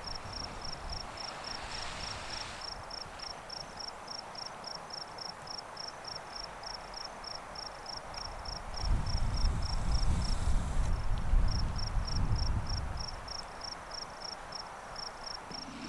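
A cricket-like insect chirping on one high note, about two to three chirps a second and pausing briefly near eleven seconds, over a steady hiss. From about nine to thirteen seconds in, a louder low rumble rises and falls away.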